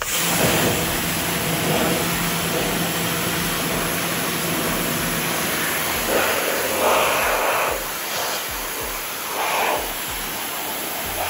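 Pressure washer spraying a jet of water against a porch window screen and sill: a loud, steady hiss that starts abruptly and swells a few times as the spray moves across the surface.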